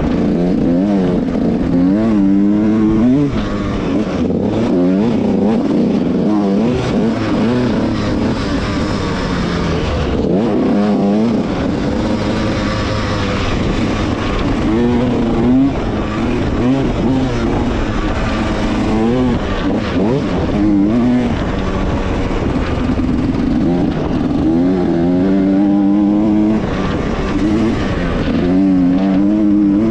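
Yamaha YZ125X 125 cc two-stroke single-cylinder dirt bike engine being ridden hard, its pitch rising again and again as it revs up through the gears and dropping back off the throttle.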